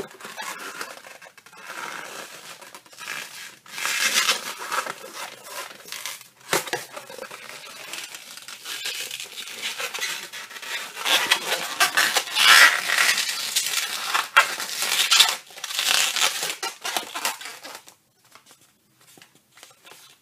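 Red 260Q latex modelling balloon being twisted and folded by hand, giving irregular bursts of rubbery rubbing and crinkling that stop about two seconds before the end.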